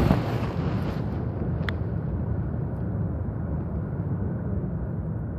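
Steady low rumbling background noise with no voice, broken by a single short click about 1.7 s in.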